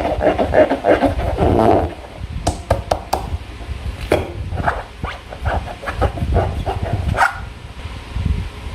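Slime being squished and worked by hand: irregular wet squelching with sharp sticky clicks and pops, densest in the first two seconds, over a low rumble of handling noise.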